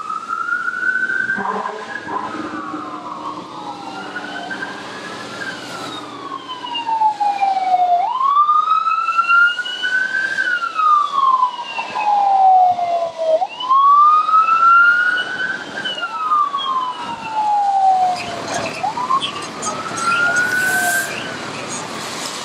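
Emergency vehicle sirens wailing, slowly rising and falling in pitch about every five seconds, with two sirens overlapping at times.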